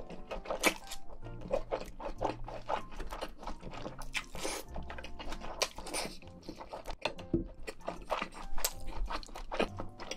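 Close-miked eating: chewing and crunching food, with many irregular small wet clicks and crackles, over soft background music.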